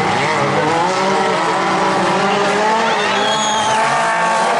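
Several stock car engines racing together on a dirt track, each engine note rising and falling as the drivers rev through the bends.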